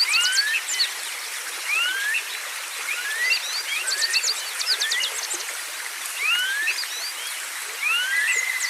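Several birds chirping and calling over a steady hiss: rising whistled calls repeat every second or so, mixed with runs of quick sharp chirps, and a short trill starts near the end.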